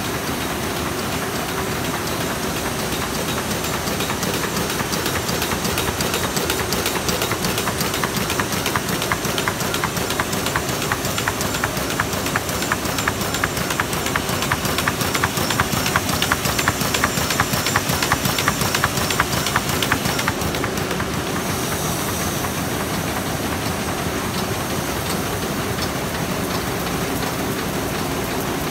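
Heidelberg Speedmaster SM52 six-colour sheetfed offset press running, a steady mechanical whir with a rapid, even clicking of the sheet feed. The clicking grows stronger and then fades about twenty seconds in, leaving the steady run.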